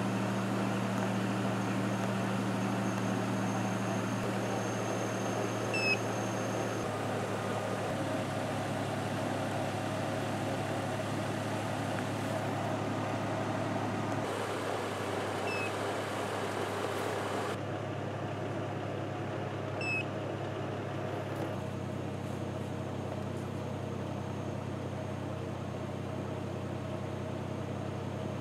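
A steady low mechanical hum from a motor or engine running, whose pitch pattern and level change abruptly several times. A few faint short chirps sound above it.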